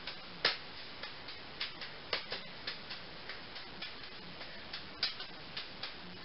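Four juggling balls in an async fountain, two in each hand: a quick, uneven run of soft slaps as the balls land in the palms, about three or four a second.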